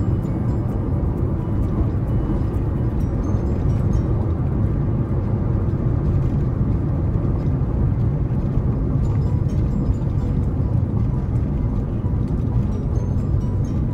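Mitsubishi Mirage hatchback with a Fujitsubo Authorize R chambered muffler, driving at a steady speed: a low, even exhaust drone mixed with road noise, with no revving.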